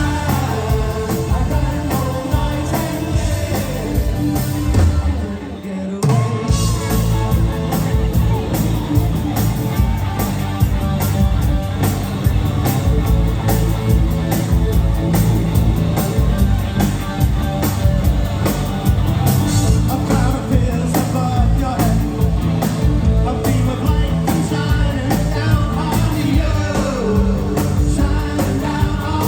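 Live new wave rock band playing with a lead vocal over a steady beat; the music thins out briefly about five seconds in before the full band comes back in.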